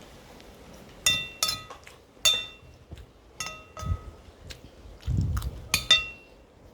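Cutlery clinking against a plate about seven times during a meal. Each strike rings briefly at the same pitch, and a few low dull thumps fall between them.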